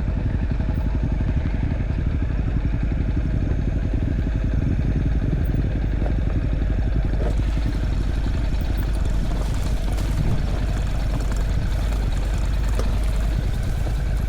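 Motorbike engine running steadily while under way, a dense low rumble with fast even pulsing. About halfway through, a brighter hiss joins it.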